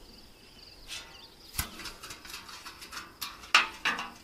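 A rusty sheet-metal plate being handled and tossed aside: a run of knocks, clicks and rustling, the loudest knock about three and a half seconds in. Crickets chirp faintly and steadily underneath.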